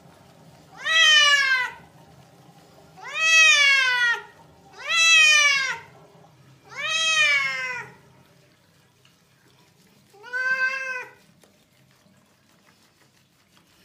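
A cat meowing: five long, drawn-out meows, each rising then falling in pitch, the first four in quick succession and the last after a short pause.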